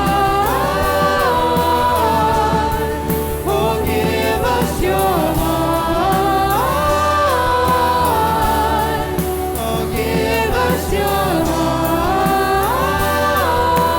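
Christian worship music: a singer holding long notes that slide between pitches over a steady band accompaniment.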